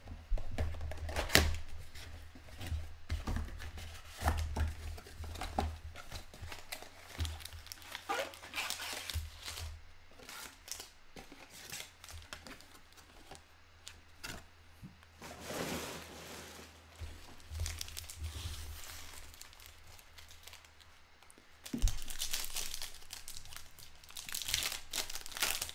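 Foil wrappers of Panini Mosaic basketball card packs being torn open and crinkled by hand, with irregular crackles and light handling knocks. The loudest tearing comes in two bursts near the end.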